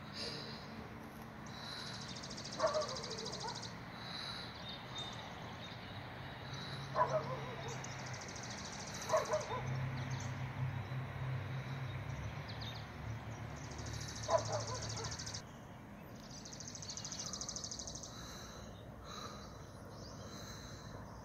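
Outdoor ambience with birdsong: a high, buzzing trill repeated about four times, and four short, lower animal calls. A low hum runs through the middle.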